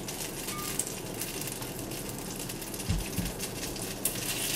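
Brussels sprout leaves frying in browned butter in a black steel pan: a steady sizzle that grows louder about four seconds in. Two soft low bumps come shortly before that.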